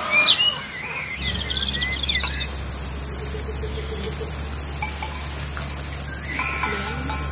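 A steady, high-pitched drone of insects, with a few bird chirps and a short trill in the first couple of seconds. A low steady hum comes in about a second in.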